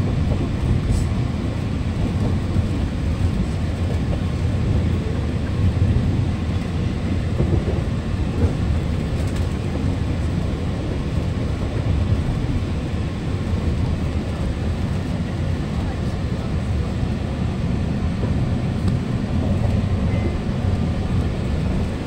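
Alishan Forest Railway narrow-gauge passenger train running, heard from inside the carriage as a steady low rumble of wheels on the track.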